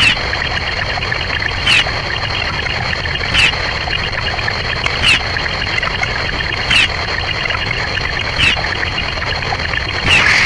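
A short chirp-like sound effect repeating about every 1.7 seconds over a steady hiss with a constant high whine.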